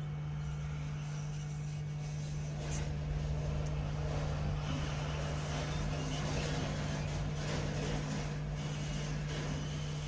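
Hot air rework gun blowing steadily with a constant low hum, its airy hiss getting louder partway through as the nozzle is brought onto the phone's circuit board to heat and reseat a small IC.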